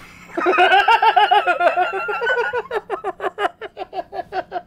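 A man laughing hard: a long high-pitched squealing laugh that breaks about two and a half seconds in into quick rhythmic bursts of laughter, about five a second.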